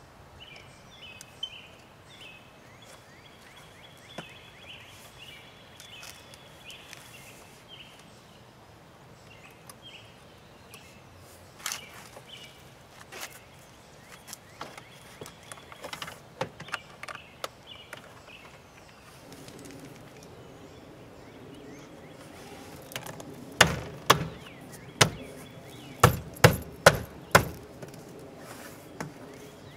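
Plastic door trim panel of a BMW E46 being pressed and struck onto the door so its clips snap home: light clicks and knocks as it is handled, then about eight sharp snaps and thumps in quick succession near the end. Birds chirp in the background through the first part.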